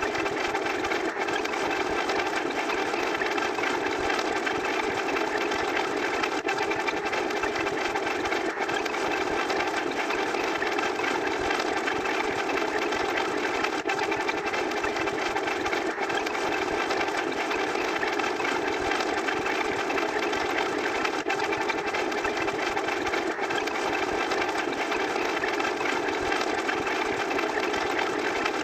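A steady mechanical running noise, like a motor, that does not change.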